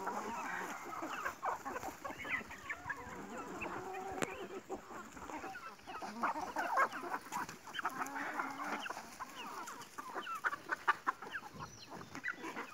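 A flock of free-range chickens clucking as they feed on scattered grain, over a busy patter of short pecking clicks.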